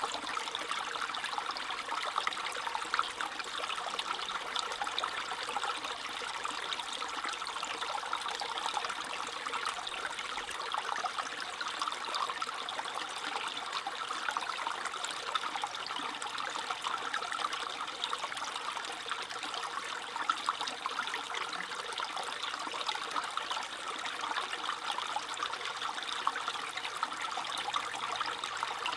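Small stream trickling and babbling over stones, with a steady flow.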